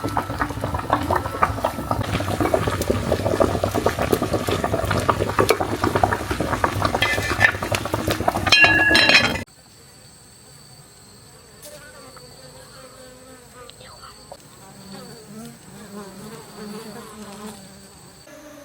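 Loud, dense crackling noise full of clicks that cuts off abruptly about halfway through. It gives way to quieter outdoor ambience with a steady high-pitched insect drone and faint low calls.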